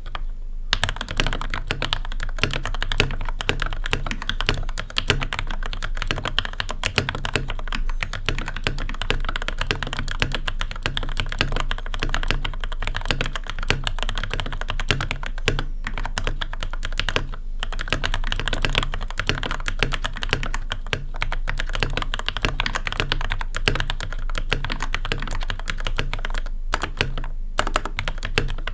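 Fast, continuous typing on a GamaKay LK67 custom mechanical keyboard fitted with lubed Gateron Milky Pro Yellow linear switches, case foam and a tape-modded PCB. A dense run of key clacks with a few short pauses.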